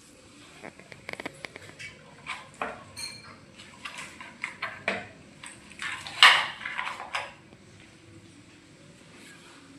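Irregular clicks and clatter of hard objects being handled, with the loudest knock a little after six seconds in.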